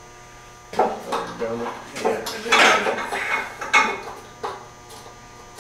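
Several sharp metallic clanks and clinks from hand tools and metal exhaust parts being handled, with a brief low mutter of a voice about a second in.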